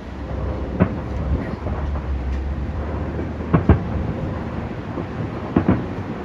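Fireworks exploding: a sharp bang about a second in, a close pair of bangs around three and a half seconds, and another pair near the end, over a continuous low rumble.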